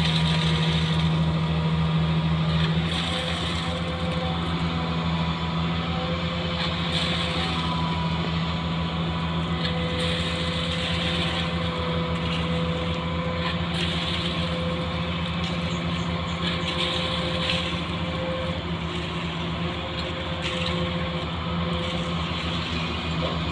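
An engine running steadily with a low, even drone, a little louder for the first three seconds.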